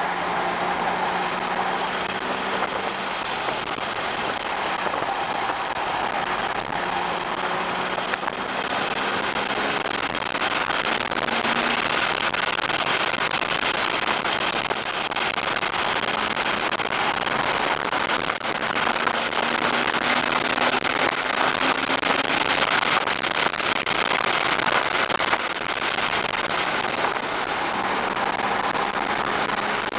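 2007 Porsche Cayman S's 3.4-litre flat-six driven hard on track, its note rising as it pulls through the gears and falling as it lifts for corners. Heard from inside the cabin under dense crackling road and wind noise.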